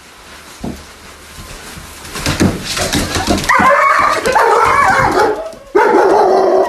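A dog vocalizing in two long, wavering whining howls, the first starting about three and a half seconds in, the second right after a short break. Before them come some clicks and shuffling.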